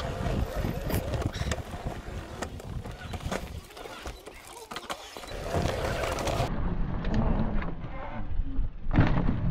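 Mountain bike rolling over a dry dirt and gravel trail: tyre noise on the dirt with many small rattles and knocks from the bike over bumps.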